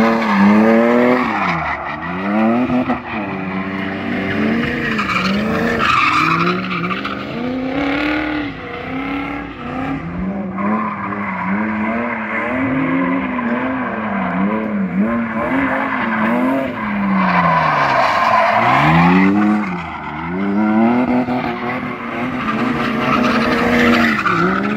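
BMW E36's 3.0-litre M54B30 straight-six revving up and down again and again as the car drifts, with the rear tyres squealing and skidding in bursts.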